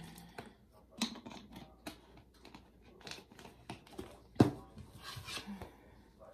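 Faint handling noises: scattered small clicks and crinkles of a plastic water bottle being handled, with a sharper click about four and a half seconds in, and clothing rustling as a person gets up near the end.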